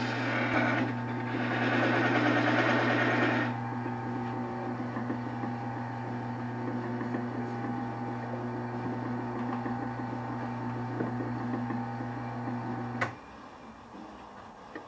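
Wood lathe running with a steady motor hum. For the first few seconds a turning tool cuts the spinning Osage orange with a louder rough scraping noise. The hum then runs on alone and cuts off suddenly near the end.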